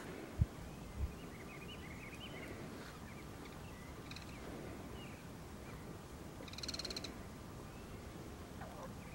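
Outdoor natural ambience with birds chirping now and then. About two-thirds through, a brief rapid pulsed call rises above it. Two short low thumps come near the start.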